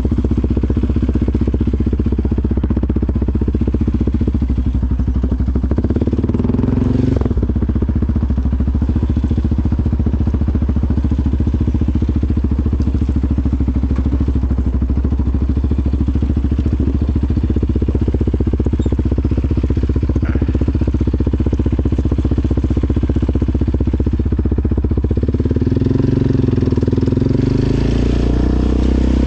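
Sport ATV engine running steadily at low speed while riding, its pitch rising near the end as it accelerates.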